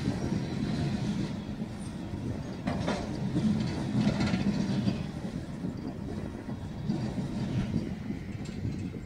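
Empty steel coal hopper cars of a slow freight train rolling past, a steady low rumble of wheels and rattling car bodies with clicks over the rail joints. Sharper metallic rattles stand out about three and four seconds in.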